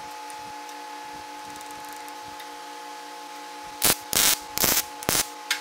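Wire-feed welder laying short tack welds: four quick bursts of crackling arc noise, starting near the end, each lasting a fraction of a second.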